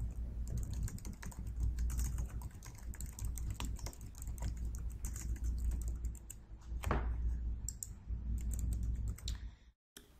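Typing on a computer keyboard: a quick run of keystrokes with a low steady hum underneath, stopping just before the end.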